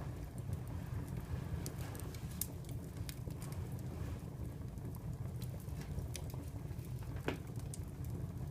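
Wood fire burning in a fireplace: a steady low rumble with irregular sharp crackles and pops, one louder pop near the end.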